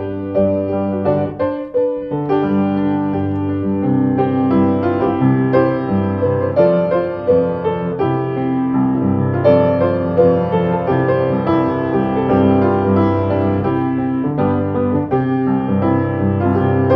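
Background piano music: a gentle piece of held chords under a melody, playing without pause.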